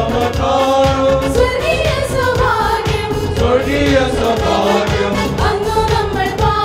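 A group of men singing a worship song together, amplified through handheld microphones.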